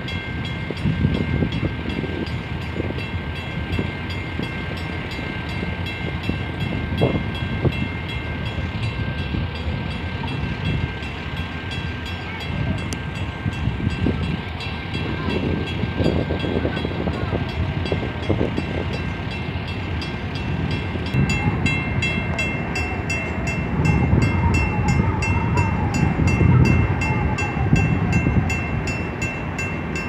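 Low, steady rumble of tugboat and cargo-ship diesel engines passing close, swelling louder near the end.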